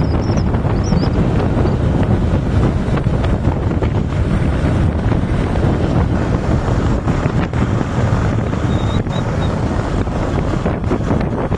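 Loud, steady wind rush buffeting the microphone on a moving motorcycle, with the sound of the ride underneath.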